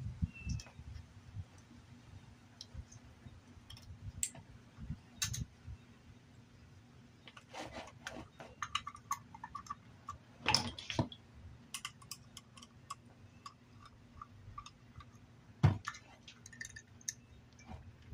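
Scattered small clicks and light knocks of metal carburetor parts and hand tools being handled while a 50cc scooter carburetor is taken apart and its float bowl lifted off. The loudest knock comes near the end.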